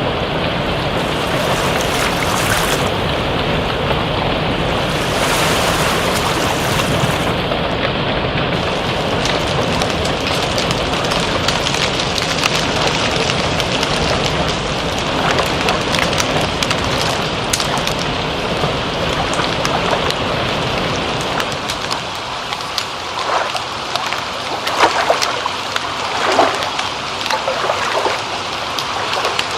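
Steady rain falling, a dense hiss with many fine drop ticks. About two-thirds of the way through, the low rumble drops away and uneven splashing and trickling of running water comes forward.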